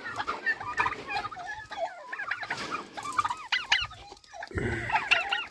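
A flock of black turkeys calling: many short, overlapping chirping and clucking calls that keep coming.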